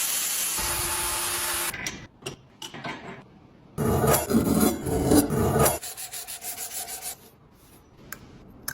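Work on an antique bread cutter during restoration: a steady hiss, a few clicks, then about two seconds of loud, rough scraping and rubbing, and faint ticking near the end.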